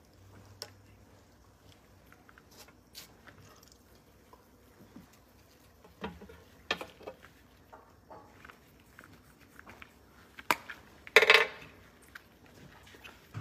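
Small handling sounds of tools on a plastic work mat: scattered light taps and clicks as tweezers and a glue stick are handled, with a louder short clatter about eleven seconds in.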